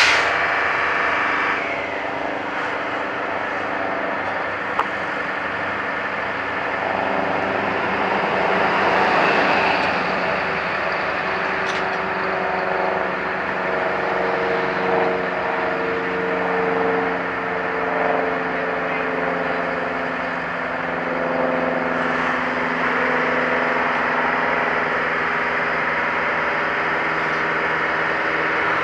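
Heavy diesel engines running steadily, a drone whose tones slowly rise and fall in pitch as an engine revs up and down.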